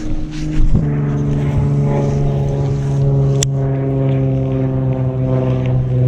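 An engine running with a steady drone. It drops in pitch about a second in and then holds one even note. A single sharp click comes about halfway through.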